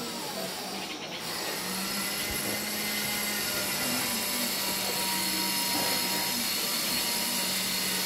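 Steady machine noise: a constant low hum under an even hiss that swells about a second in and holds.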